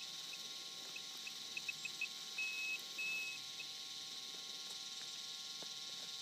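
Handheld metal-detecting pinpointer beeping, its short high beeps coming faster and faster, then sounding two longer steady tones about two and a half and three seconds in: it is closing in on a metal target in the dug hole.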